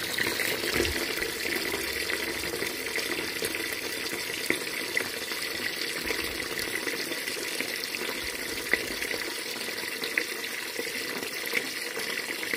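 Water jetting steadily from a garden hose spray nozzle into a bucket of water, splashing: a well system's pressure tank being drained down through its boiler drain.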